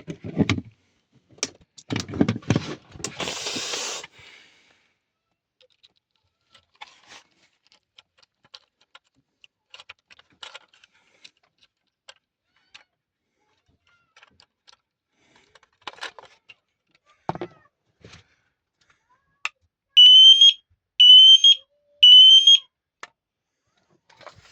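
Niglon NFA01A optical smoke alarm sounding three shrill beeps, each about half a second long and rising slightly in pitch, spaced about a second apart: the standard three-beep alarm pattern. Before them come scattered clicks and rustling.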